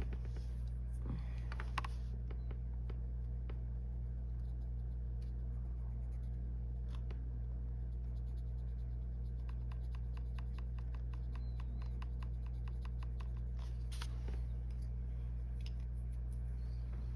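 Colored pencil scratching on coloring-book paper in short, quick strokes, with a dense run of rapid strokes in the middle, over a steady low hum. A few louder clicks and taps stand out near the start and again about fourteen seconds in.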